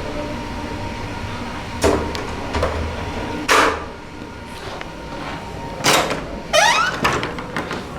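Creaky doors with Sargent door closers and mortise-lock latches opening and shutting: sharp latch clicks and knocks about two, three and a half and six seconds in, and a short creak that rises in pitch near the end.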